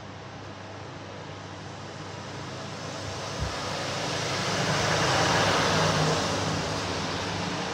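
A vehicle passing the food van: a rushing sound that swells to its loudest about five to six seconds in and then fades, over the steady hum of the rotisserie oven's fan. A single click about three and a half seconds in.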